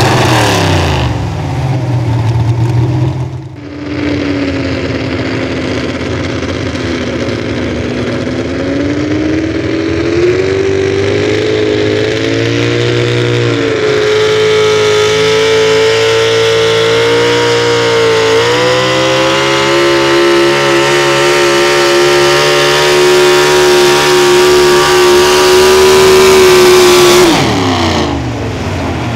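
Super stock 4x4 pulling truck's engine held at high revs under load through a pull, its pitch climbing, dipping twice, then falling away sharply near the end as the power comes off. Right at the start another pulling truck's engine winds down.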